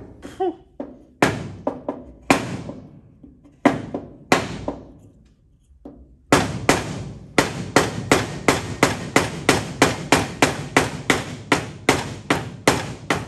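Hammer blows on heated sheet-steel body panel, straightening a crease left by a crash: a handful of spaced, ringing strikes, then from about six seconds in a fast, steady run of about three blows a second.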